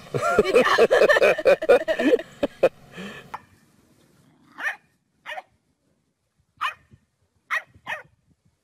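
A dog, a white bulldog sitting up and facing upward, barking in about six short, high barks spaced roughly a second apart through the second half. A busy stretch of animal calls and voices fills the first three seconds.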